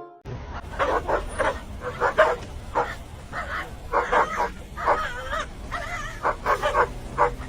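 A dog giving a run of short yips and whines, a few a second, with pitch bending up and down.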